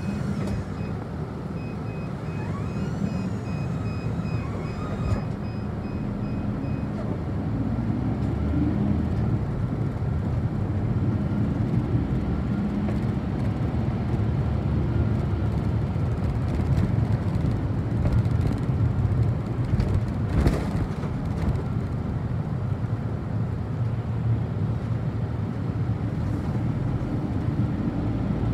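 City bus engine and road noise heard from inside the cabin as the bus pulls away from a standstill and picks up speed, growing louder after the first several seconds. A repeating high beep sounds during the first several seconds.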